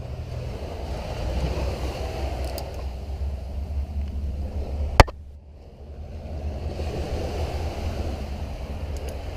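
Wind buffeting the microphone, a steady low rumble with surf-like hiss, and one sharp click about five seconds in.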